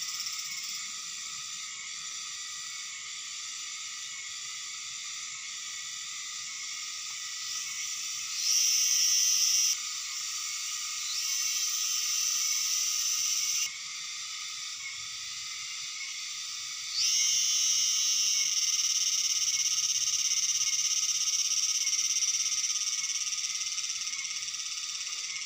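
Outdoor animal chorus: a steady high-pitched drone, with three louder sustained calls that start and stop abruptly, the last one lasting about eight seconds.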